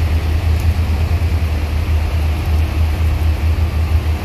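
Steady low diesel engine rumble over the hiss of heavy rain, as a coach drives up a ferry's loading ramp onto the car deck.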